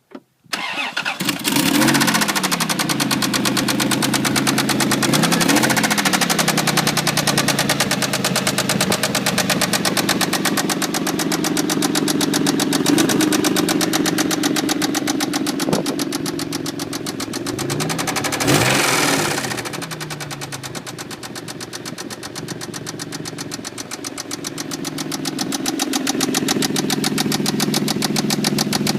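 Toyota Tacoma's 3.4 L V6 (5VZ-FE) starts and runs with a loud, rapid knock in time with the engine, and is blipped briefly three times. The knock is a bad lower-end (bottom-end) knock.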